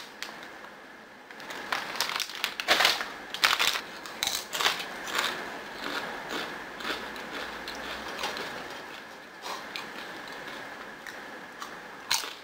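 Close-up chewing of crispy kettle corn popped-corn chips: sharp crunches about two seconds in, then softer, steadier crackling as the chips are chewed down.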